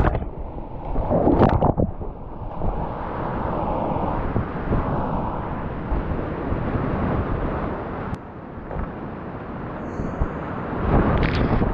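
Whitewater rapids rushing, heard close up as a steady roar of water. Water washes over the microphone in a louder surge about a second in and again near the end.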